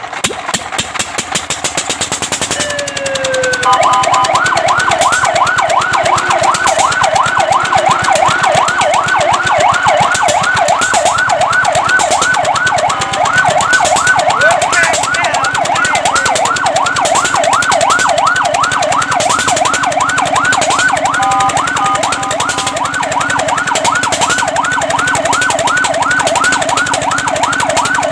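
Fire truck's electronic siren on a fast yelp, a rapid rising-and-falling wail of several cycles a second, starting about four seconds in after a short falling tone. Around two-thirds of the way through it briefly holds steady tones before going back to the yelp. A fast rhythmic clatter comes before the siren starts.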